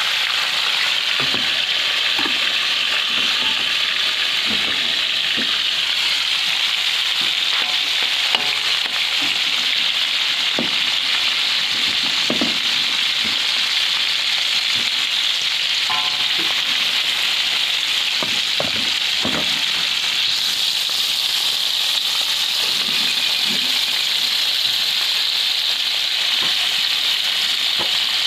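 Climbing perch (papuyu) frying in hot oil: a steady sizzle with small pops and spatters scattered throughout.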